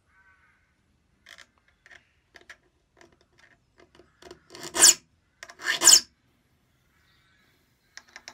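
A small file rasping across the steel teeth of an antique Thomas Sorby dovetail saw held in a sharpening jig: a few light scrapes, then two loud strokes about five and six seconds in. The saw is being sharpened, with teeth missed on the first pass being touched up.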